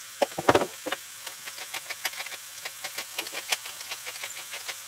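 Hand-twisted pepper mill grinding pepper, a rapid run of small dry clicks, with a few louder strokes in the first second as salt is sprinkled on.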